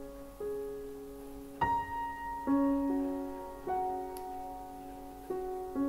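Soft background piano music, with notes and chords struck every second or so and left to fade.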